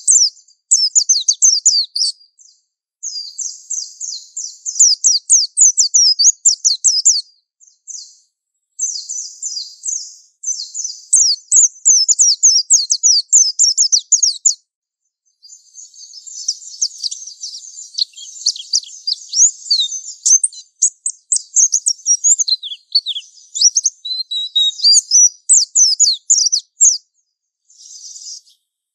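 White-eye (pleci) singing a high, rapid twittering song in the long 'ngalas' style. The song comes in bursts of several seconds with short pauses between them, mixing buzzy stretches with quick falling notes. Near the end comes a brief final burst.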